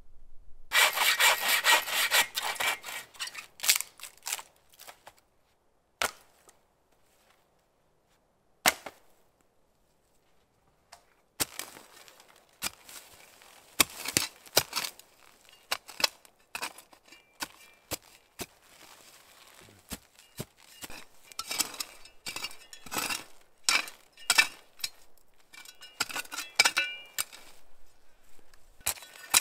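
Small folding shovel scraping and digging through dry pine-needle litter into sandy clay soil: a run of irregular scrapes and crunches, with a quiet pause of a few seconds near the middle.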